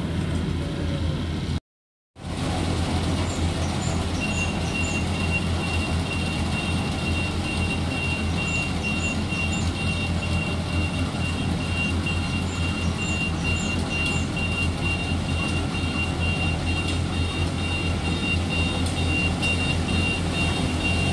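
Yanmar AW70 combine harvester's diesel engine running steadily with a deep rumble. It cuts out for a moment about two seconds in. About four seconds in a high-pitched electronic beep starts and keeps sounding.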